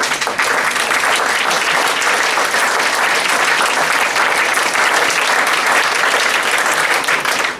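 Audience applause: many hands clapping together in a dense, steady patter.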